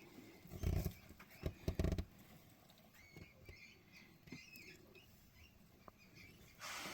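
Handling noises: a few soft knocks and rustles in the first two seconds, then faint high squeaks and a short hiss near the end.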